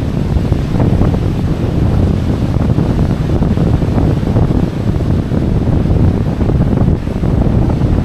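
Wind buffeting the microphone as a loud, continuous low rumble, with ocean surf washing beneath it.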